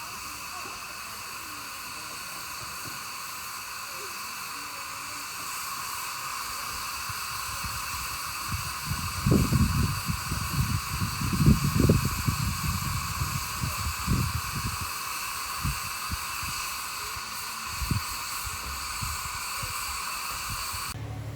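Steady hiss of steam from a miniature railway steam locomotive blowing off. Gusts of wind buffet the microphone in the middle.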